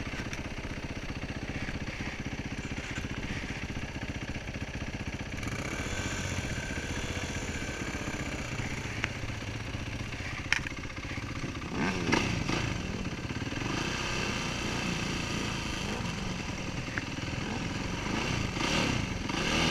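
Dirt bike engines running: a steady idle close by, with engines revving up and down about twelve seconds in and again near the end, and a single click a little before the first rev.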